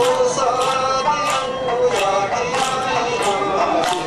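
Okinawan (Yaeyama) folk dance song: sung voices holding and sliding between notes over a steady percussive beat.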